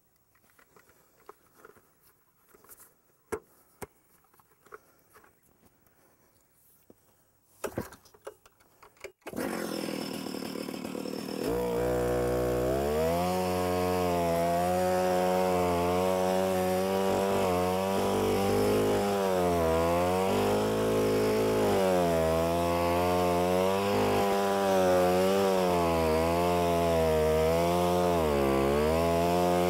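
Alpine Magnum portable stump grinder's two-stroke chainsaw engine, pull-started and catching about nine seconds in, then running at high revs as its cutter wheel cuts a shallow trench in soil. The engine pitch dips and recovers over and over as the wheel takes load.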